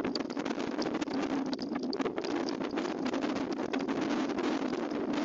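Thunderstorm downburst wind gusting hard over heavy rain: a steady rush of noise with wind buffeting the microphone and fine crackle from the rain.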